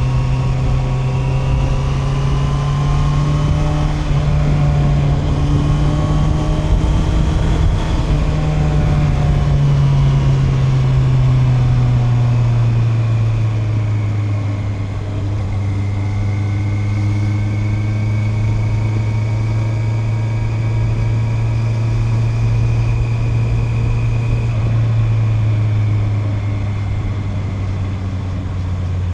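Honda CB650R's inline-four engine, fitted with a DNA air filter, running under way at steady mid revs. Its pitch holds and rises slightly for the first ten seconds or so, then eases down gradually as the revs drop.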